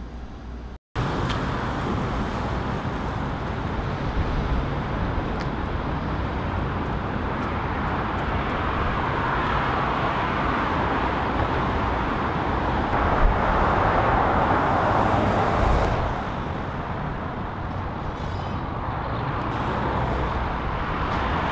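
Steady wash of road traffic noise, an even roar with a low rumble under it. It cuts in after a brief moment of silence about a second in.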